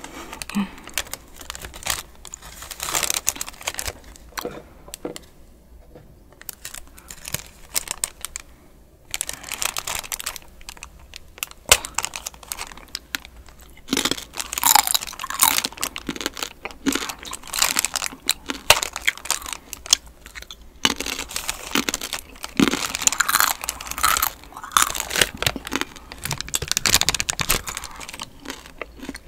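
Crinkling and crackling of a small foil chip wrapper handled close to the microphone, in irregular bursts of a few seconds with quieter gaps between.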